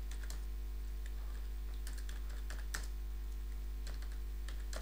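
Computer keyboard keystrokes: scattered clicks as terminal commands are typed, some in quick runs, over a steady low hum.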